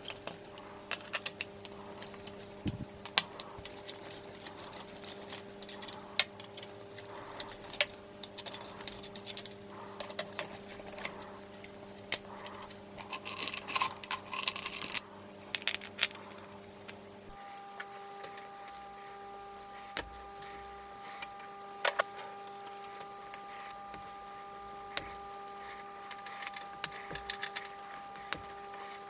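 Scattered metallic clinks and taps of hand tools and loose engine parts being handled during a motorcycle engine teardown, with a short spell of rattling near the middle, over a steady hum.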